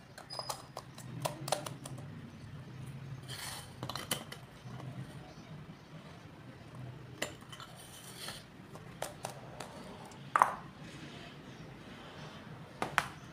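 Plastic LED bulb parts being handled: scattered light clicks and knocks of the diffuser dome and bulb housing, with the loudest knock about ten seconds in, over a low steady hum.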